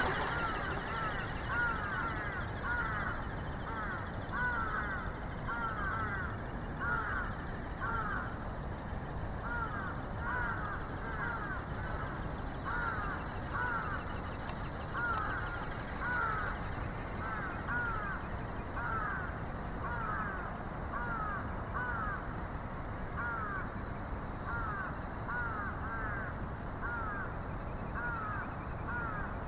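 Electric ornithopter in flight: its film-covered wings flap with a regular swishing stroke about twice a second, over a high thin whine and a constant low rush of wind on the microphone.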